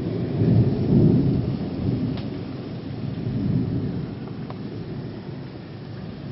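Heavy downpour of rain with a long roll of thunder that swells near the start, rumbles again midway and slowly fades.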